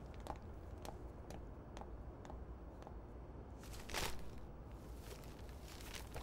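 Footsteps at an even walking pace, about two a second. About four seconds in there is a louder rustle of shopping bags and cellophane bouquet wrapping as they are set down.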